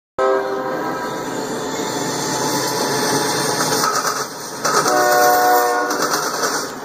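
Diesel-electric freight locomotives' multi-chime air horn blowing: a short blast at the start and a longer one about two-thirds of the way through. Between the blasts the locomotives run past, with wheels clattering over the diamond crossing.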